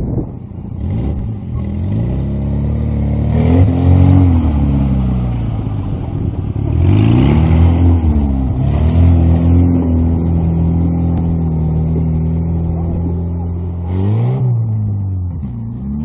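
Off-road 4x4 engine being driven on sand, revving up and settling back several times: its pitch rises and falls about three times, with steady running in between.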